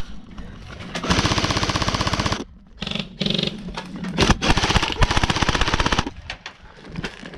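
Airsoft rifle firing on full auto: a rapid burst of about a second and a half starting about a second in, a few scattered shots, then a second burst of similar length.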